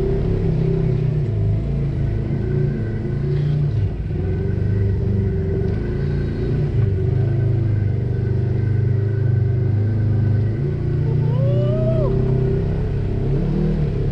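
Polaris RZR side-by-side's engine running at low speed as it crawls over rocks, its pitch rising and falling with the throttle. About eleven seconds in, a short higher tone rises and falls over it.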